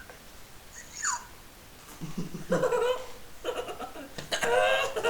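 Laughing: a short high squeal about a second in, then several bursts of giggling laughter.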